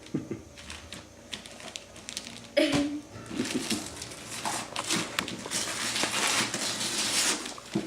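Gift-wrapping paper crinkling and tearing as a present is unwrapped, getting busier and louder in the second half, with a short voice sound about two and a half seconds in.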